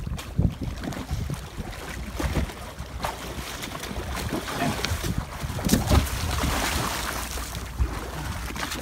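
Sea water splashing and churning as swimmers thrash beside a boat's hull and pull themselves up its side, with a louder burst of splashing about six seconds in. Wind rumbles on the microphone underneath.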